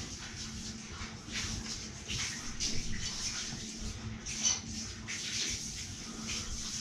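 Water spraying from a handheld shower head onto a golden retriever's wet coat in a tiled shower stall: a steady hiss with splashing that swells and fades, over a low steady hum.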